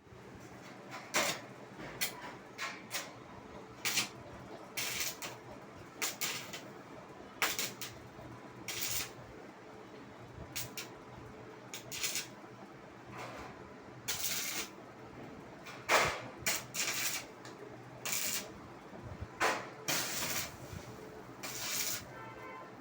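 A string of irregular short knocks, clicks and scrapes, some lasting up to half a second, over a steady low hum; the loudest knock comes about two-thirds of the way through.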